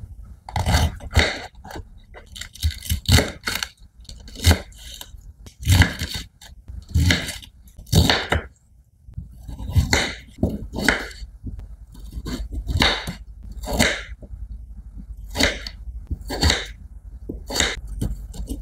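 Kitchen knife chopping vegetables on a wooden cutting board: irregular crisp cuts, about one a second and some in quick pairs, each ending in a knock on the wood. It cuts cabbage, then chayote, and a corn cob near the end.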